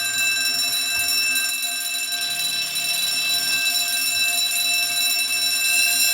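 Electric fire alarm bells ringing continuously, set off from a manual call point in a fire alarm test. The ringing is steady and unbroken and grows a little louder near the end.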